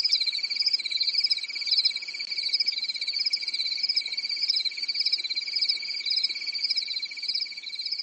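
Night-time insect chorus: a steady, even cricket trill under a higher chirping call that repeats about every two-thirds of a second.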